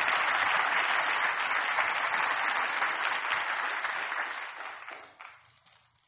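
Audience applauding, the clapping dying away about five seconds in.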